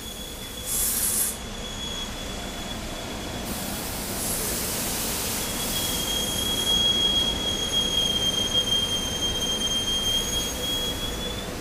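SEPTA Silverliner IV electric commuter train rolling slowly past with a steady high-pitched wheel squeal, louder in the second half. A short burst of hiss comes about a second in.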